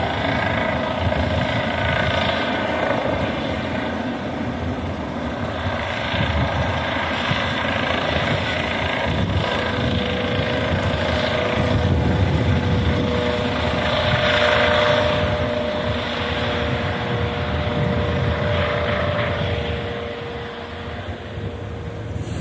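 Helicopter close by, its rotors and engine running steadily as it manoeuvres to land. About halfway through, a steady whine comes in over the rotor noise.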